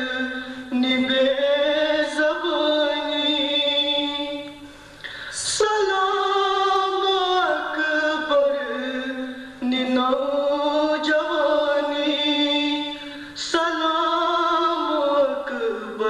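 A man chanting a Kashmiri nauha, a Shia lament, without instruments, in long held notes that glide and waver in pitch. There are short pauses for breath between phrases about five, ten and thirteen seconds in.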